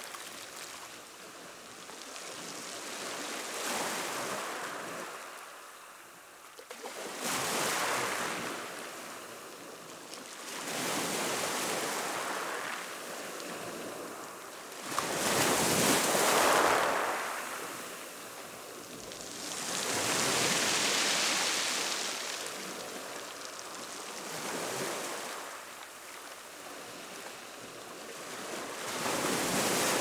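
Choppy sea washing onto a shore: waves surge in and draw back every four seconds or so, the loudest surge about halfway through.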